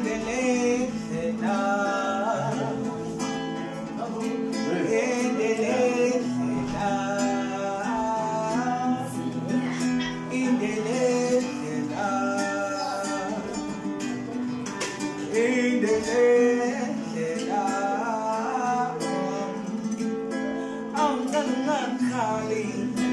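A man singing a song over an acoustic guitar that is being picked and strummed.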